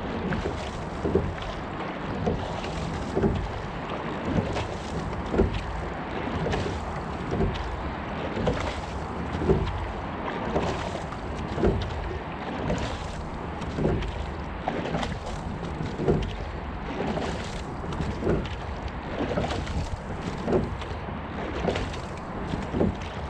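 Single racing scull being rowed. Steady water rush along the hull, with wind on the microphone and a sharp knock from the sculling stroke about once a second.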